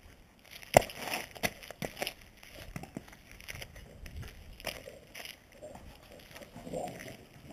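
Two dogs, a Boxer and a Groenendael, scuffling and wrestling in play on a gritty concrete yard: scattered knocks and scrapes of paws and bodies. One sharp knock about a second in is the loudest sound.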